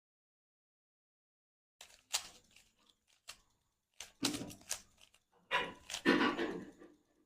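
Rubik's Cube layers being twisted quickly by hand: short runs of plastic clicking and rasping. They start after a silent second or so and grow denser and louder over the last three seconds.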